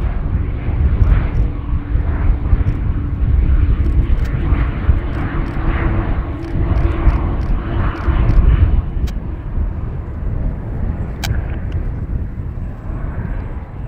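Airbus A220-300 airliner's Pratt & Whitney PW1500G geared turbofan engines running as it rolls along the runway: a loud, uneven low rumble with a steady hum that fades out about nine seconds in.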